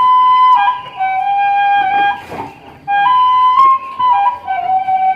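Background music: a flute melody of held notes stepping up and down, with a brief pause about two seconds in.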